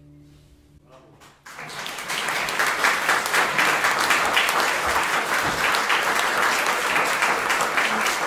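The last plucked notes of baroque triple harp and lute die away, then an audience breaks into applause about a second and a half in, swelling quickly and continuing steadily.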